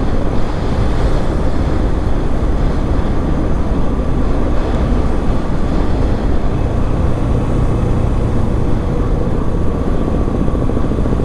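Motorcycle running through city traffic, recorded from the moving bike: steady engine and road noise with wind rushing over the microphone, the engine note steadying for a few seconds past the middle.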